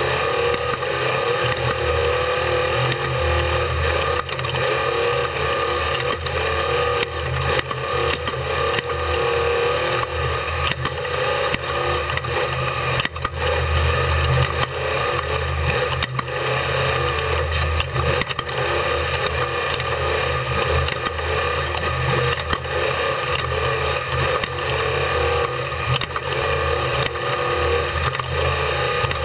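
Unlimited-class desert race truck at speed, heard from on board: the engine runs hard without a break under a constant din, with frequent short knocks and rattles through it.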